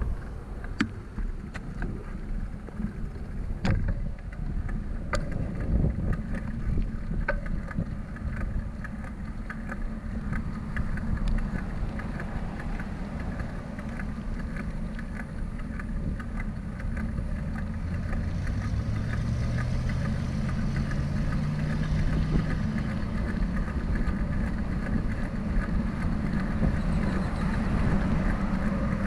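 Wind buffeting the microphone of a bicycle-mounted camera while riding beside a busy road, with the steady rush of passing car traffic. A few sharp knocks come in the first several seconds, and from about 18 to 23 seconds in a vehicle's engine tone rises as it accelerates past.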